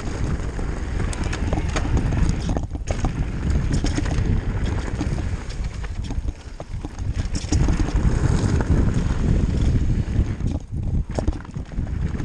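Mountain bike riding fast down a dirt and gravel trail: tyres rumbling over the ground and the bike clattering and rattling over bumps, with wind rushing over the microphone. The noise eases briefly twice.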